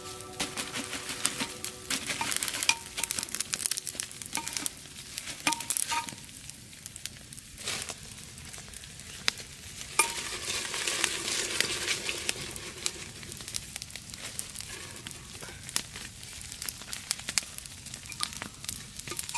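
A wood campfire crackling, with food sizzling in a blackened pot set in the flames. A knife stirs and scrapes inside the pot, giving a few short metallic clinks. The sizzling hiss is strongest about halfway through.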